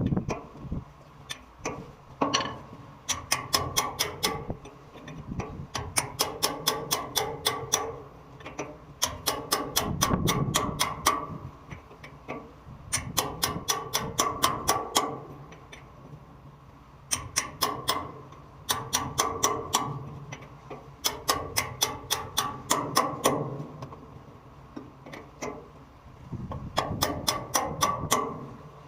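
Rapid, regular metallic clicking, about five or six clicks a second, in repeated spells of one to two seconds with short pauses between them. It comes from tool work on a hydrant.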